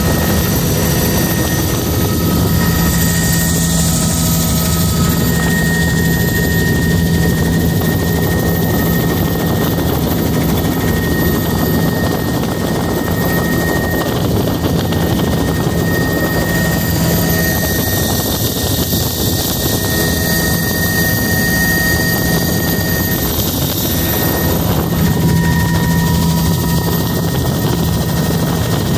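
Helicopter engine and rotor noise heard from inside the cabin in flight: a steady loud drone with a steady high whine over it.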